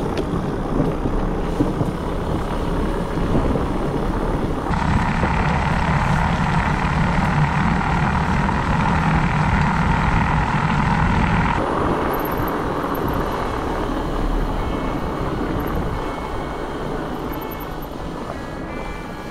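Wind buffeting the microphone and tyres rolling over the trail while riding a mountain bike, a steady rushing noise with low rumble. The noise grows brighter about five seconds in and settles back about twelve seconds in.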